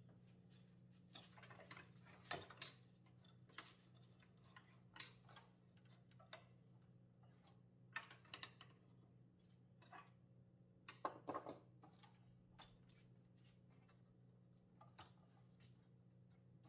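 Faint, scattered clicks and knocks of a wooden board being handled and set against a miter saw's fence and table, the saw not running, over a faint steady low hum.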